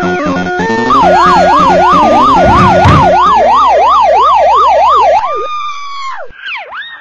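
A siren in a fast yelp, its pitch sweeping up and down about two and a half times a second. About five seconds in it breaks off into a held note and a few separate slides up and down.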